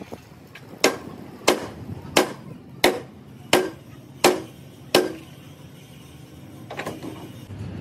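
Hammer blows on metal during truck cab and chassis repair work: seven steady strikes about 0.7 seconds apart, each with a short ring, then one lighter blow near the end.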